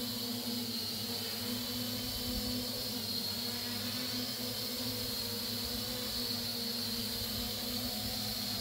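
Homebuilt multirotor drone hovering, its electric motors and propellers giving a steady buzzing hum with a constant pitch.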